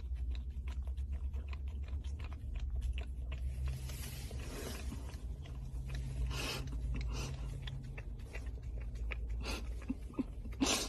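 Puppy licking and lapping inside a paper cup of whipped cream, many short clicks and smacks with the paper cup rustling and scraping against its face, over a low steady rumble of the car cabin.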